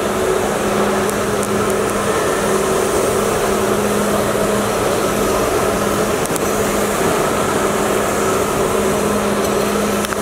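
Steady mechanical drone with a low, even hum underneath, with no change through the stretch.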